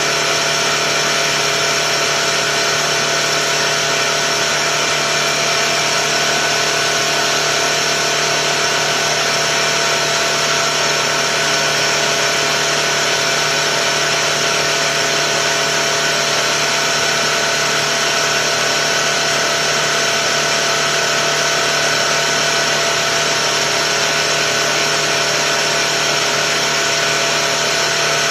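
Tuxing four-stage high-pressure air compressor running steadily as it pumps up an air tank, a constant mechanical hum with several held tones.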